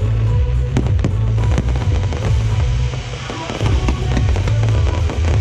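Aerial fireworks bursting and crackling in quick, irregular bangs, over loud music with heavy bass.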